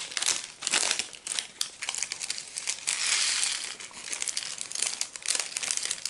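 Plastic packaging and sticker sheets crinkling and rustling as they are handled by hand, with many short crackles and one longer rustle about three seconds in.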